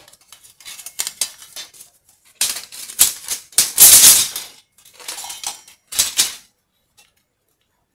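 Irregular scraping and clattering of a tape measure being handled and slid against an ATV wheel rim and brake disc, loudest a little past the middle and stopping about three-quarters of the way through.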